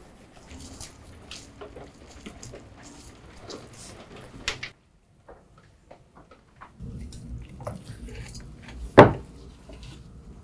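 Kitchen handling sounds: scattered clicks and scrapes of a knife and utensils against a metal tray and a wooden cutting board. There is a quiet stretch in the middle and one sharp knock about nine seconds in.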